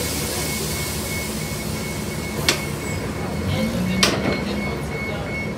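Transit bus interior at a stop: an electronic warning beeper repeats rapidly, about three beeps a second, and stops near the end, over the engine's low rumble and a high air hiss that fades after about four seconds. Two sharp clicks sound about a second and a half apart.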